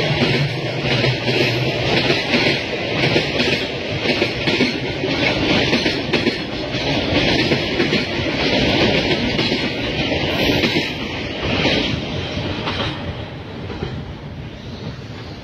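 Freight train of container flatcars and car-carrier wagons rolling past close by, with a dense rumble and clattering wheels. The noise dies away about thirteen seconds in as the last wagon passes.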